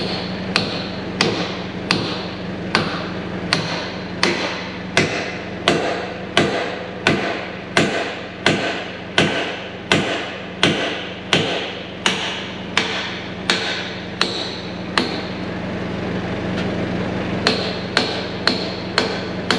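Hand sledgehammer striking steel on the C-frame mount of a Deere 650H dozer, steady blows about every 0.7 s, metal on metal. The blows pause for a couple of seconds near the end, then a few more follow.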